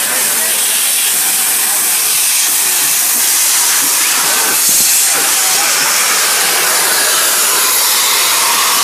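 Steady loud hiss of steam venting from a narrow-gauge steam locomotive.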